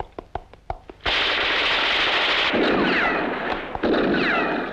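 Quick light taps, about six a second, then about a second in a sudden loud burst of film gunfire and blast noise that carries on to the end. It surges twice more, with falling whines like bullets ricocheting off rock.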